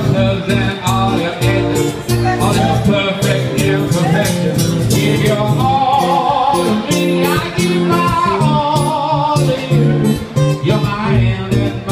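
Two steel-string acoustic guitars strummed in a steady rhythm while a man sings along, in a live acoustic duo performance.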